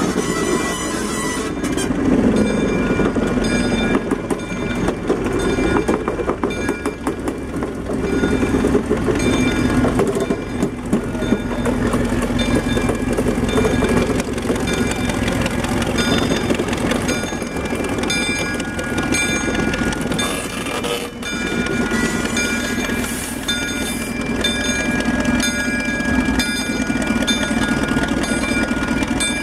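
A 1943 Plymouth locomotive and its passenger coach moving slowly past, the engine running steadily and the wheels rolling on the rails. Short high ringing tones recur every second or so throughout.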